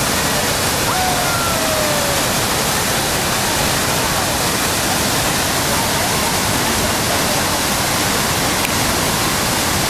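Niagara Falls heard from close beneath: the steady, loud rush of falling water.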